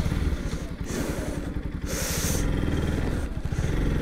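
Motorcycle engine running with a steady, rapid low pulsing, and a brief hiss about two seconds in.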